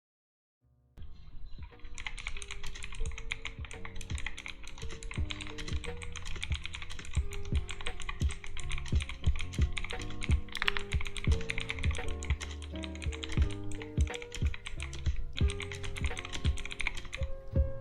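Rapid, continuous typing on a mechanical keyboard with clicky Outemu Blue switches, starting about a second in. The keyboard is an Armaggeddon MKA-3C Psychfalcon with a plastic plate, no lube, no stabilisers and no dampening. Background music plays underneath.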